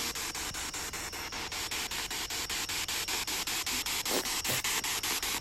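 SB7 spirit box sweeping through radio stations: a steady hiss of radio static chopped into rapid even pulses, about five a second, with a couple of brief snippets of sound about four seconds in.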